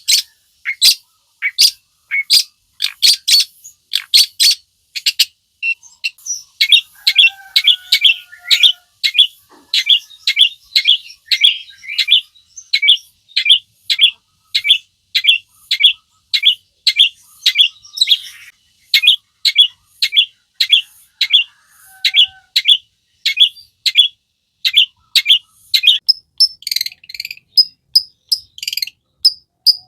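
A long-tailed shrike (cendet) singing a rapid string of short repeated notes, about two or three a second, shifting to higher, thinner notes near the end.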